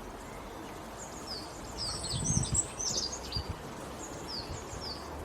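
Small birds chirping in a quick series of short, high notes that slide downward, starting about a second in and pausing briefly before a few more near the end, over steady outdoor background noise. A couple of low thuds come about two seconds in.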